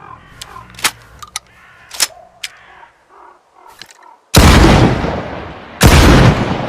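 Two loud shotgun-like bangs about a second and a half apart, each trailing off over more than a second, made as a sound effect with a broomstick. A few faint clicks come before them.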